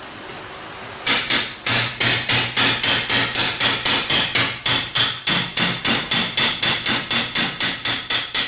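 A hammer strikes a steel tool held against the cast-iron block of a Toyota 2C diesel engine, working at a core plug. The blows are sharp and metallic, come in a fast, even run of about four a second, and start about a second in.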